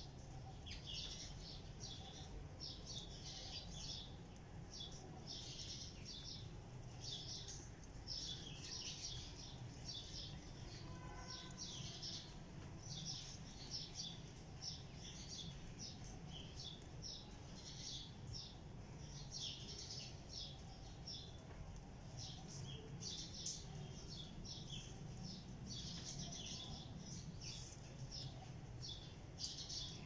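Birds chirping in quick, irregular clusters of short high chirps, over a faint low steady rumble.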